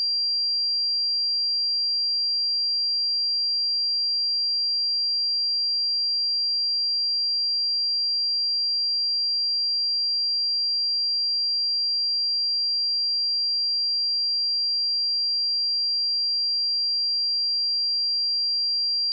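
A steady, unbroken 4745 Hz sine-wave test tone: a single high-pitched pure tone held at constant level.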